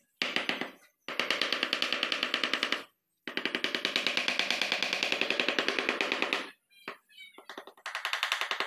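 Edited-in music with a fast, rattling beat of about eight pulses a second, broken by several abrupt cuts to silence.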